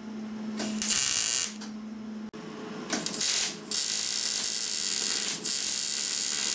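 Wire-feed welder arc crackling as a bracket is welded to a steel frame tube: two short tack welds, then a continuous bead from about halfway in, with a steady hum in the pauses.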